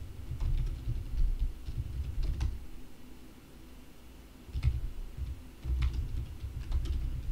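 Typing on a computer keyboard, in two runs of keystrokes with a pause of a couple of seconds between them.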